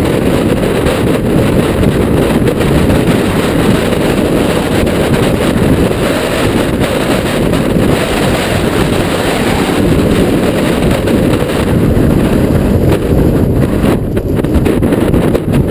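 Strong wind buffeting the camera microphone during a mountain-bike ride: a loud, steady low rumble.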